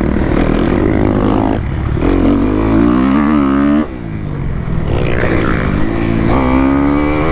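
Kawasaki KX250F four-stroke single-cylinder dirt bike engine revving hard and shifting on a motocross track. The throttle is chopped suddenly about four seconds in, then the engine winds up again.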